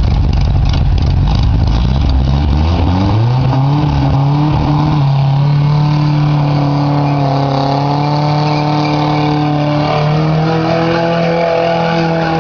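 Racing vehicle engine: a low rumble, then revs climbing over about two seconds and held high and steady, rising slightly again near the end.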